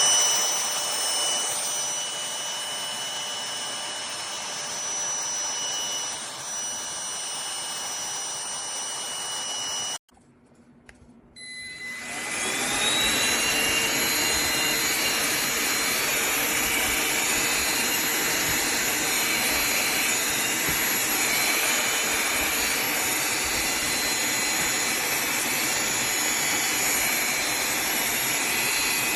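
Cordless handheld vacuum cleaner running with a steady high-pitched motor whine. About ten seconds in it is switched off and falls silent. About a second and a half later it is switched on again, its whine rising as the motor spins up, and then it runs steadily.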